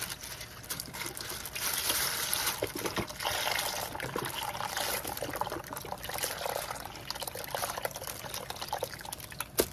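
Chicken stock pouring from a carton into a slow cooker pot, a steady gurgling stream of liquid.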